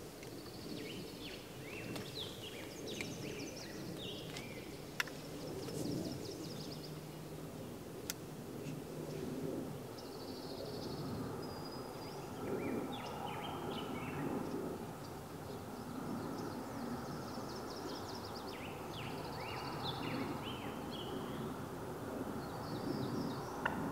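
Songbirds singing in repeated short phrases of quick stepped notes and trills, over a steady low ambient background, with a couple of faint sharp ticks.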